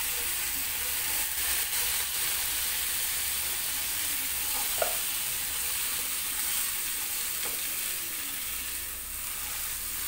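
Diced carrot and potato sizzling in margarine in a wok as they are stirred with a spatula: a steady frying hiss with a light tap of the spatula on the pan about halfway through.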